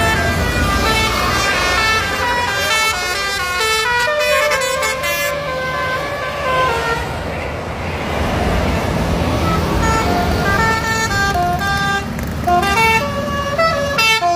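Bus's multi-tone 'basuri' telolet air horn playing a quick melody of stepped notes over a low engine rumble.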